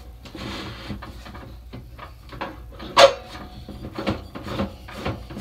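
Clicks and knocks from a Mr. Heater Buddy portable propane heater's controls being worked to start it, with one loud sharp snap about three seconds in.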